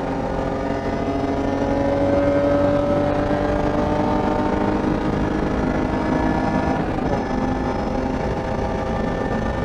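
BMW E30 325is race car's 2.5-litre straight-six engine running hard under racing load, its note climbing slowly for about seven seconds, then breaking and changing pitch.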